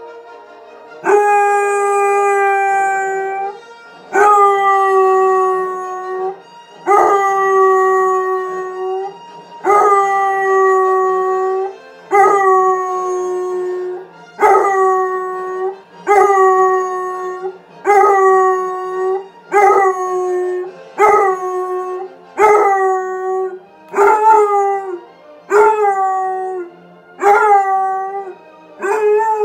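Basset hound howling again and again, about fourteen held howls on a steady pitch. The first few are long, about two seconds each; later ones grow shorter and come closer together.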